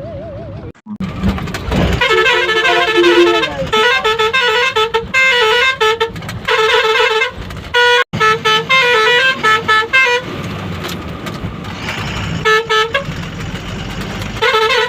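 Truck's musical horn playing a tune in quick stepped notes, in several phrases with short breaks, with a low rumble about a second in before the first notes.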